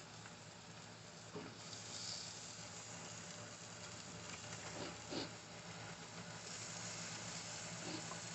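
Chicken drumsticks sizzling on a grill: a steady, faint hiss with a few small clicks.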